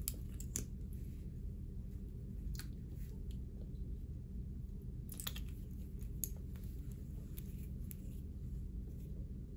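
A quiet steady low hum with scattered faint clicks and small squishy sounds of a lip gloss tube and its applicator wand being handled.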